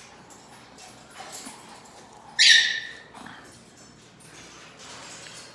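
A parrot gives one loud, harsh squawk about two seconds in, lasting about half a second.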